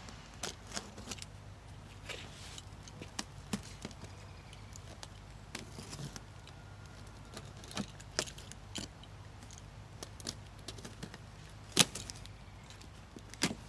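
A pocket knife slitting packing tape on a cardboard box, with scattered clicks, taps and short scrapes as the cardboard is handled; a couple of sharper clicks near the end are the loudest.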